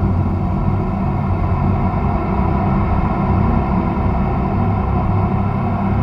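Ambient soundscape drone: a steady, dense low rumble with sustained tones layered above it.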